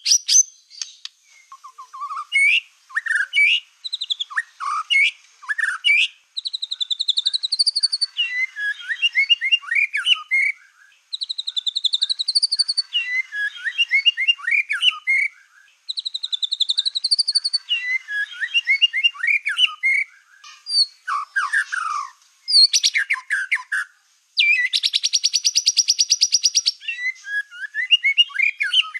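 Black-tailed white-rumped shama singing a continuous, varied song of clear whistles, chattering phrases and rapid trills, with a long buzzing rattle a few seconds before the end.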